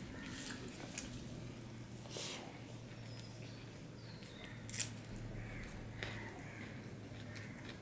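Faint wet squishing and soft clicks of fingers mashing and mixing rice with vegetable chochori on a steel plate, scattered through, with one sharper click about two-thirds of the way in. A faint steady low hum runs underneath.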